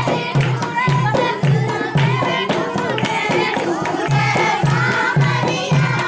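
Dehati folk song playing: a singing voice over a steady low drum beat, about two beats a second.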